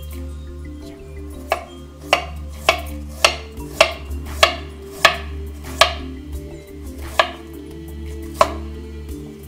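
Knife slicing fresh ginger on a cutting board: about ten sharp chops, roughly two a second at first and then more widely spaced, over steady background music.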